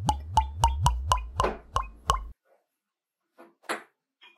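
Cartoon bubble-plop sound effect: a quick run of about eight plops, roughly four a second, stepping up in pitch over a low hum, stopping a little over two seconds in. Near the end there are a few soft knocks as a glass beer bottle is handled.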